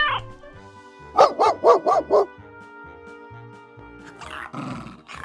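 A dog barking five times in quick succession, about four barks a second.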